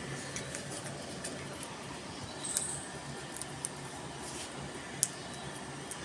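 Indian ringneck parrot nibbling a green chilli: a few faint clicks and crunches from its beak, with one sharper click about five seconds in, over a low steady background hum.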